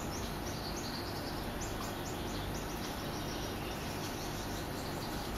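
Steady hum and hiss, as of running aquarium pumps and water circulation, with a thin, high chirping repeated a few times a second over it.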